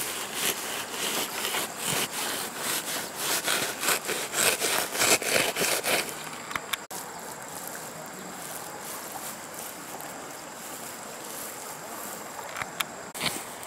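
Rapid rhythmic scraping in wet sand, several strokes a second, for about six seconds, then stopping. A steady hiss follows, with a couple of sharp clicks near the end.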